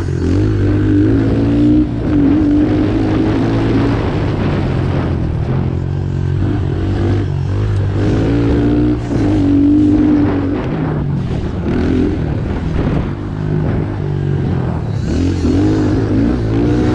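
A stock Honda CRF110F's small single-cylinder four-stroke engine, heard from on the bike, revving up and easing off again and again as it is ridden hard around a dirt track.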